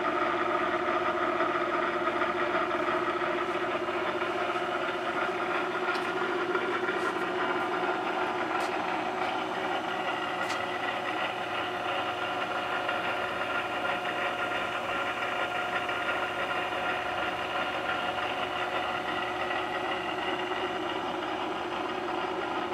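Arboga 6008M drill press running steadily, its motor and spindle drive giving an even whine made of several held pitches, with a few faint ticks about a third of the way in.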